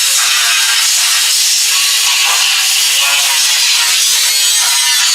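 Grinder with a cut-off wheel cutting through sheet steel: a steady, loud, harsh hiss, with the motor's pitch wavering as it loads and recovers. The cut stops right at the end.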